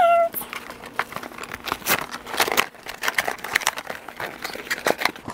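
Cardboard toy blind box being opened and handled: irregular crinkling, scraping and small clicks of the packaging.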